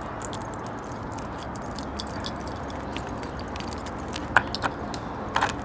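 Small clicks and light jingling rattles from handling, over a steady background hiss, with a few sharper clicks near the end.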